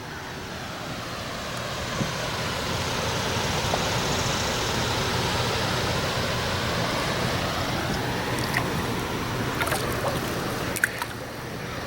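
River water rushing over rocks: a steady hiss that swells over the first few seconds and eases near the end, with a few light knocks late on.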